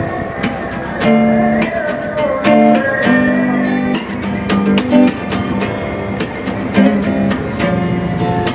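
Background music led by strummed acoustic guitar, with chords changing about every second.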